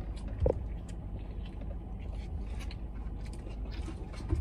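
Quiet sounds of eating and drinking: scattered small clicks and rustles over a low steady hum, with one soft thump about half a second in.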